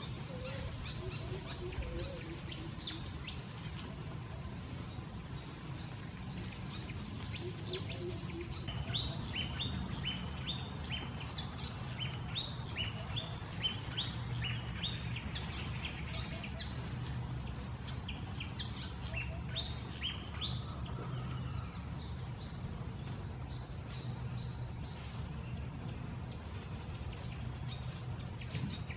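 Several small birds chirping with many short, high notes that come thick and fast through the middle stretch, over a steady low hum.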